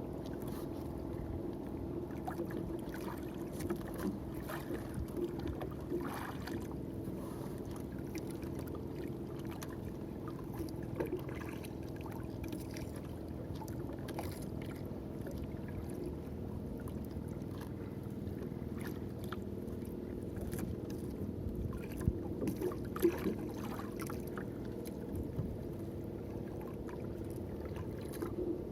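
Small fishing boat at sea: a steady low hum with water noise, and scattered light knocks, a few sharper ones about three-quarters of the way through.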